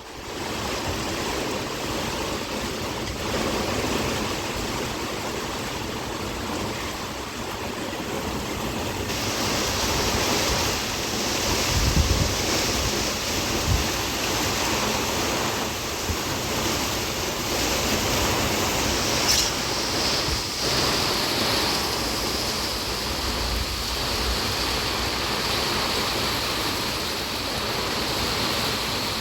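Heavy rain pouring down in a steady hiss that grows stronger about nine seconds in, with a brief low thump about twelve seconds in.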